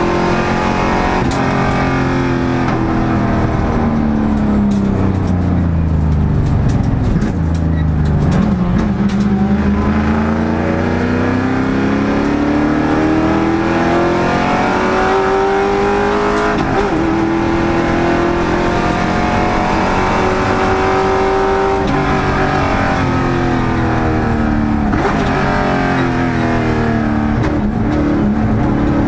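GT race car engine heard onboard at racing speed, its pitch climbing under acceleration, dropping sharply at each upshift and falling away under braking and downshifts. A scattering of sharp crackles comes as the revs fall about a quarter of the way in.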